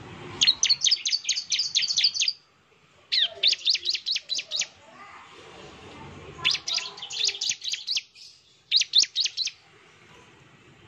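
Bar-winged prinia (ciblek) singing its rapid-fire 'nembak' song: four bursts of quick, evenly repeated high, sharp notes, each burst lasting about one to two seconds, with short pauses between.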